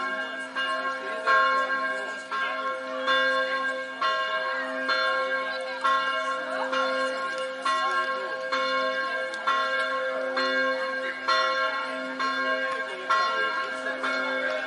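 A bell tolling, struck about once a second, each stroke ringing on into the next over a steady low hum.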